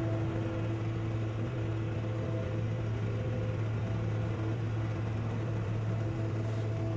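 Telehandler's diesel engine running steadily as its boom holds and moves a suspended pickup truck, a continuous low drone.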